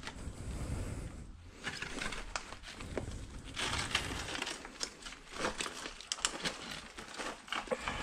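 Loose brick and concrete rubble crunching and scraping under a person's feet and gloved hands as they climb into it and shift the debris, with many small sharp clicks and clatters of broken pieces.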